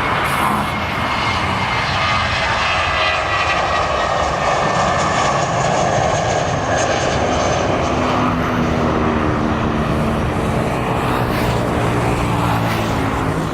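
Jet airliner engines running loud as the plane passes, a steady rush with whining tones that slowly shift in pitch.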